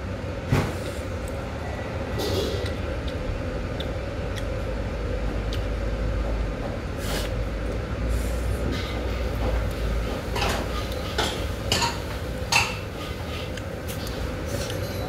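Metal chopsticks and a spoon clinking against a bowl of noodle soup, with several sharp clicks close together near the end, while noodles are slurped. A steady low hum runs underneath.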